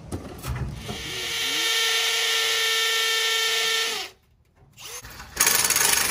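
Cordless drill driving a screw into a stainless-steel access-door frame, its motor running at a steady pitch for about three seconds and then stopping abruptly. A loud rustling noise follows near the end.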